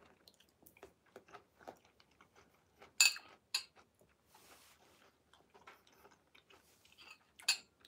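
Soft chewing and wet mouth clicks from eating banpeiyu (giant pomelo) flesh, with a few sharper clicks about three seconds in and again near the end.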